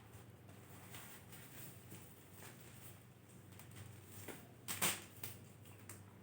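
Faint handling noises as network cable and crimping gear are set out: light rustling and a few small clicks, with a brief louder clatter about five seconds in.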